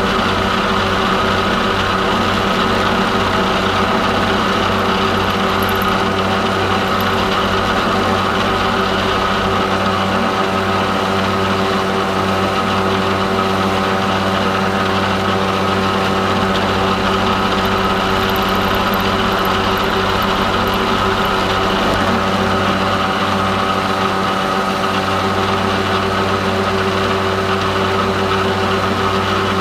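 Milling machine running steadily with an end mill cutting a slot in a metal bar, a constant motor and spindle hum with the cutting noise over it.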